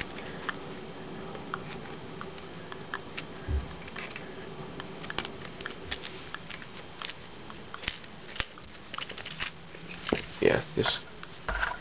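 Bare hard drive and plastic drive frame being handled and pushed together: scattered light clicks and taps of plastic and rubber as the drive is worked into its rubber mounts, with a cluster of louder knocks near the end.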